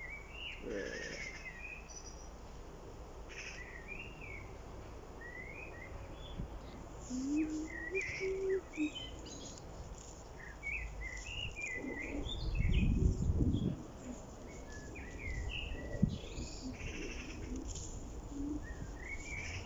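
Garden birds chirping and singing in short phrases throughout, with a brief low rumble about two-thirds of the way through.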